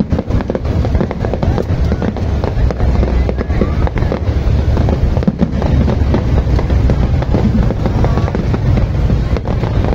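Fireworks display: many bursts and crackles overlapping densely throughout, over a heavy low rumble.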